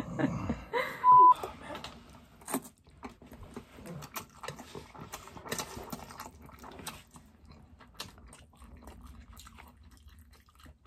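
Mukbang eating sounds of Korean fire noodles: soft chewing and noodle slurping, with many small scattered clicks of chopsticks on a metal tray. A short steady beep sounds about a second in.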